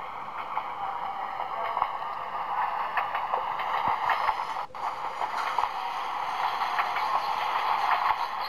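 The AR app's added soundtrack played through the Nexus S phone's small speaker: a thin, steady wash of sound with a brief dropout about halfway through.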